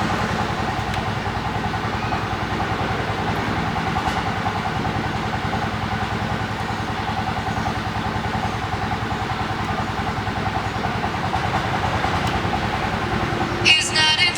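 An engine running steadily at idle, with a fast, even pulse and no change in speed.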